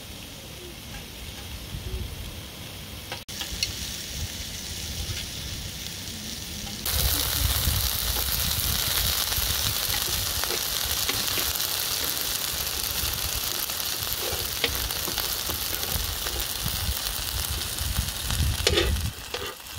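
Beef steak sizzling as it cooks, a dense steady hiss that jumps suddenly much louder about seven seconds in.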